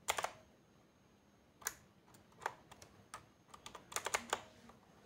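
Keys being pressed one at a time on a Motospeed CK67 mechanical keyboard with blue switches, giving scattered single clicks. A short run of quicker clicks comes just before the end.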